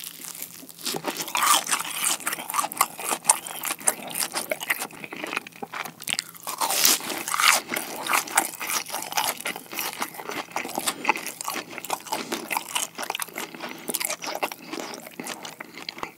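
Close-miked chewing of a fried cheese ball: a continuous run of irregular crunches and crackles as the crisp coated crust breaks between the teeth.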